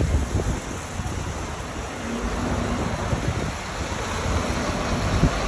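Wind buffeting the phone's microphone in uneven gusts, over the steady noise of city street traffic.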